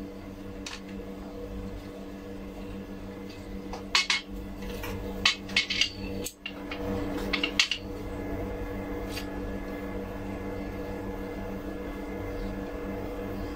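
A run of clinks and light knocks from a spirit level being set on a black metal floating-shelf bracket held against the wall, over a steady low hum.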